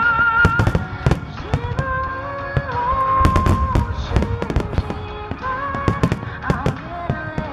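Fireworks shells bursting in rapid, irregular succession, sharp bangs with crackle, over a sustained melody played on loudspeakers.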